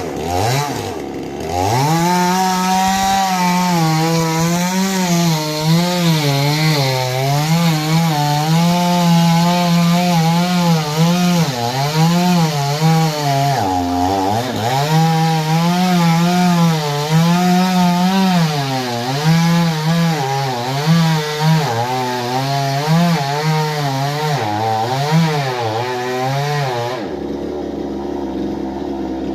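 Chainsaw revving up and cutting into a coconut tree, its engine note wavering as the chain bites and dipping sharply about halfway through, then dropping to a lower steady idle near the end.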